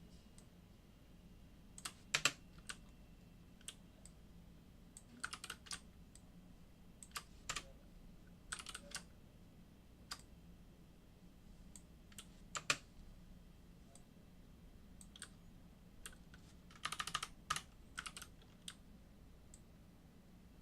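Computer keyboard keys pressed in scattered short runs of clicks with pauses between, over a faint steady low hum.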